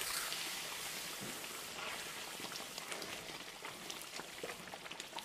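A large pan of blended tomato and pepper stew boiling hard and splattering: a steady hiss full of many small pops and spits, the sign of heat set too high for the thickening sauce.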